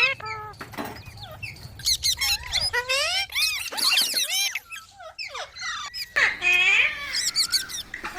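Green rose-ringed parakeet chattering: a quick run of short squeaks, whistles and chirps that sweep up and down in pitch, with a brief lull about five seconds in.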